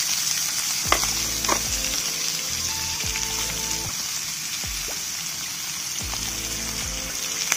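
Pieces of fish sizzling in hot oil in a steel wok, just after going into the pan, as they are turned with chopsticks. Two sharp clicks about a second in, from the chopsticks striking the wok.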